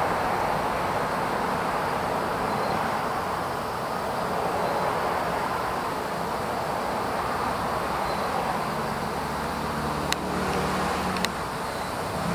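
Steady background noise of distant road traffic, with a low engine hum coming in about two-thirds of the way through and two sharp clicks near the end.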